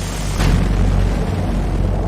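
Sound effect of a V2 rocket: a loud, continuous rumbling roar with a sudden boom-like surge about half a second in.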